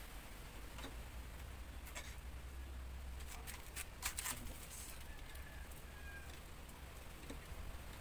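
Faint clicks and rustles of a wire being handled and fed along a motorcycle's front end, most of them in a cluster about three to four seconds in, over a low steady hum.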